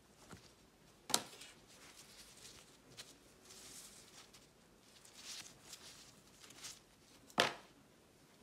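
Gloved hands handling a paper flyer and a fabric lanyard: soft rustling, with two sharp clicks, one about a second in and the louder one near the end.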